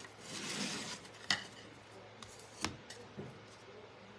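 Hands handling wooden craft cut-outs on a tabletop: a soft plastic rustle in the first second, then two light knocks about a second and a half apart as pieces are set down, and a fainter tap after.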